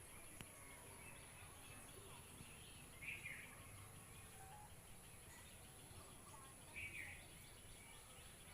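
Faint bird calls: a short call repeating about every three and a half seconds, twice, with scattered fainter chirps over a steady high hiss.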